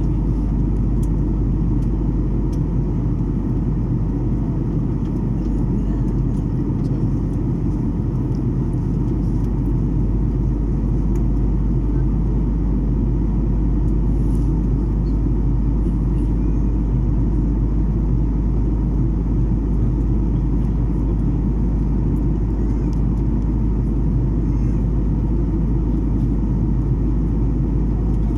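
Steady cabin noise of a Boeing 737 airliner in flight: an even low rumble of engines and airflow heard from inside the cabin.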